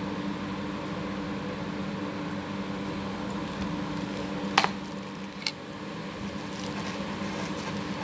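Steady mechanical hum in the background, with one sharp clink with a short ring about four and a half seconds in and a smaller click a second later, as the hard parts of a pump mechanical seal, the metal seal head and its seat ring, are handled.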